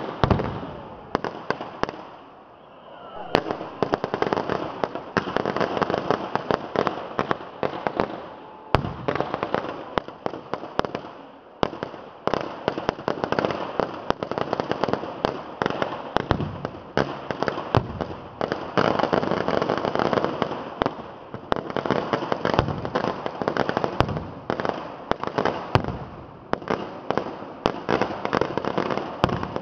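Fireworks going off in a dense, continuous run of rapid crackling bangs. The run thins briefly about two seconds in and then swells again.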